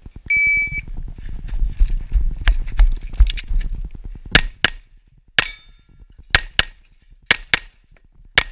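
Shot-timer start beep, then a few seconds of rustling movement, then an STI Trojan .38 Super pistol firing about seven shots, mostly in quick pairs a quarter second apart.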